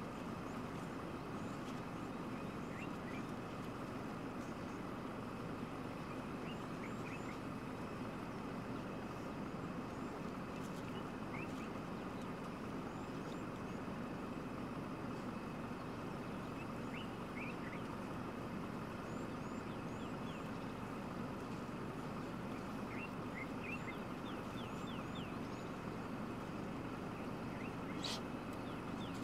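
African wild dogs twittering: short, high chirps come a few at a time throughout, over a steady low rumble like an idling vehicle engine.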